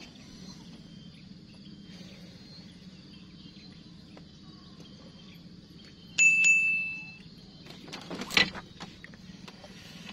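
Steady low outdoor hum. About six seconds in, a single bright ding rings out and fades over about a second. A couple of seconds later comes a sharp knock as a fishing rod is pulled from its rack rest for a bite.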